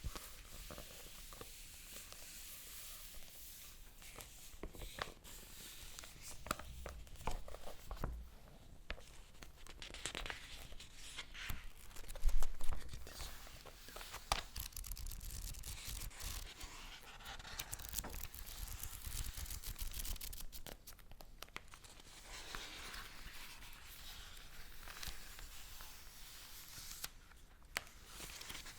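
Paper handled close to the microphone: crinkling and tearing, with many sharp crackles and a louder bump about twelve seconds in.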